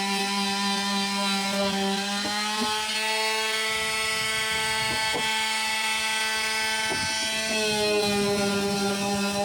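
Electric sander running against painted wood, a steady motor hum whose pitch dips slightly about two seconds in and comes back up near the end, with a few light knocks. The sandpaper on it is worn.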